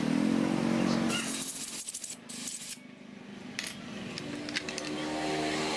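A few light metallic clinks, like small tools or parts being set down on a workbench, heard over the drone of a small engine going by; the engine fades out about a second in and builds back up from about four seconds.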